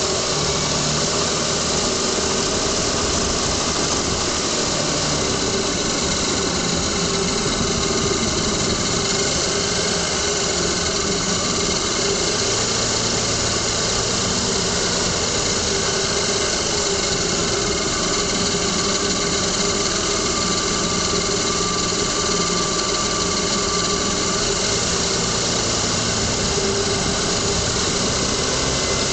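2000 Lexus ES300's 3.0-litre V6 running steadily, heard up close in the engine bay, with the rattling, ticking noise from underneath that the owner cannot trace; he says it comes at low speeds, is loudest when the engine is warm, and is not the heat shield.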